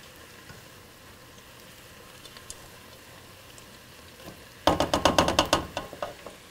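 Onions and shredded carrots sautéing in oil with a faint sizzle. A little past halfway comes a rapid flurry of knocks and scrapes, several a second for about a second, as a silicone spatula stirs them against the nonstick pot.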